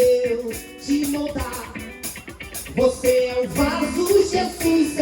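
Live band playing a Brazilian worship song, an electric bass under guitar and drums, with long held, gliding notes from a voice or lead line.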